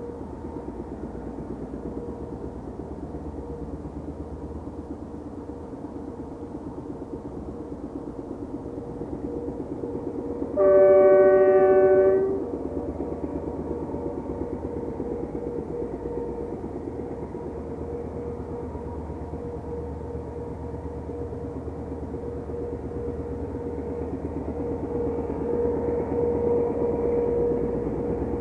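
Two DF4B diesel-electric locomotives hauling a freight train uphill, a steady engine drone that grows louder near the end. About eleven seconds in, one long horn blast of nearly two seconds, a single chord of several tones.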